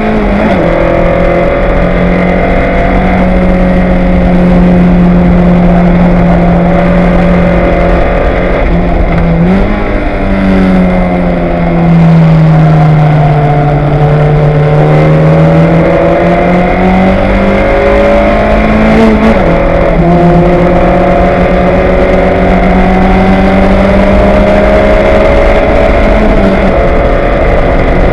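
Fun Cup race car's 1.8-litre petrol engine at racing speed, heard loud from the cockpit. Its note holds steady, sinks and climbs again between about ten and nineteen seconds in, then drops suddenly, as at a gear change.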